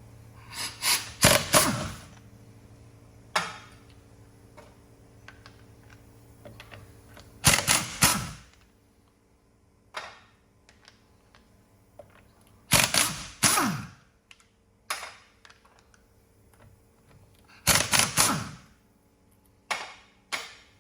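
Impact wrench rattling in four short bursts, each winding down in pitch as it stops, undoing the wheel nuts on a car's front wheel. Lighter clicks of the nuts and sockets come in between.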